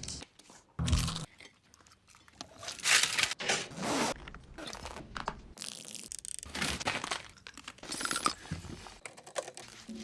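A quick series of short, unrelated film sound effects, edited hard one after another. Each is cut off abruptly, and the loudest come about one, three and four seconds in.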